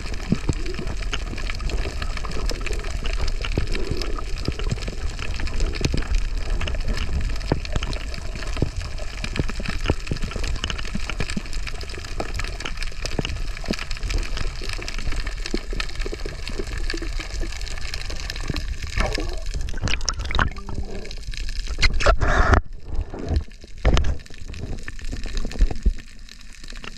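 Underwater sound from a camera held below the surface: a steady wash of water noise with dense fine crackling. From about twenty seconds in it turns uneven, with louder splashes and sloshing as the camera comes up near the surface.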